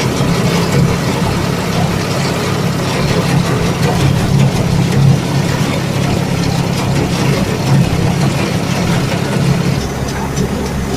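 Kubota rice combine harvester running, a steady low engine drone with the noise of its working machinery over it.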